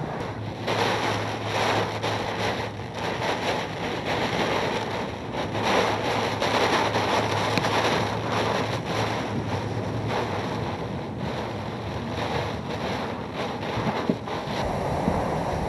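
Hurricane-force wind and driving rain of a hurricane's eyewall, a continuous rush that rises and falls in gusts and buffets the microphone. A steady low hum runs underneath.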